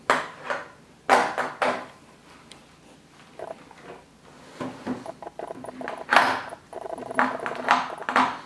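Cycling-shoe SPD cleats scraping and knocking against an exercise bike's pedals in several short clacks as the rider tries to clip in.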